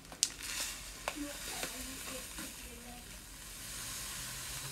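Light brown sugar pouring from a packet onto oats and butter in a plastic mixing bowl: a steady grainy hiss, with a few sharp clicks in the first couple of seconds.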